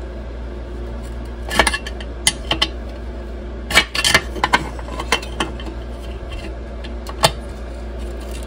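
Light metallic clinks and taps from a small steel bracket and its spring-loaded bumper bolt being handled and fitted against an outboard motor's lower cowling. The clicks come irregularly, loudest about four and seven seconds in, over a steady low hum.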